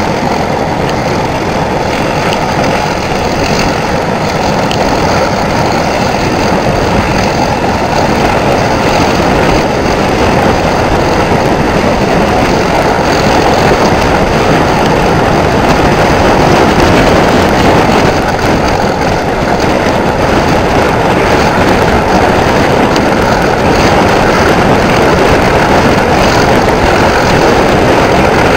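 Class 31 diesel-electric locomotive's English Electric V12 engine running under power at the head of the train, heard from an open carriage window behind it, mixed with steady wind and wheel-on-rail noise.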